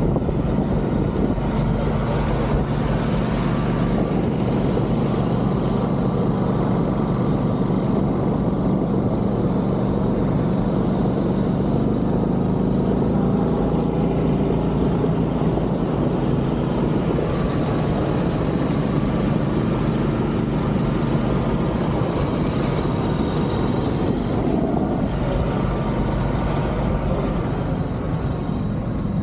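Golf cart driving along a sand beach, a steady rushing drone of wind over the microphone with a thin high whine from the cart's drive that rises and falls as its speed changes.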